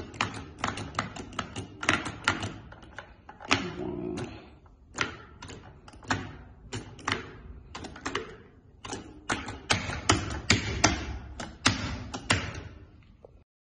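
Switches on a stage-effects electromechanical control console being clicked on and off over and over, sharp irregular clicks about two to four a second, stopping suddenly near the end.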